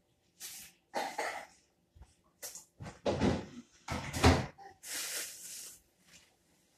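Knocks, bumps and rustling from someone handling things on a kitchen counter, with the loudest bumps about three to four and a half seconds in and a second of rustling just after.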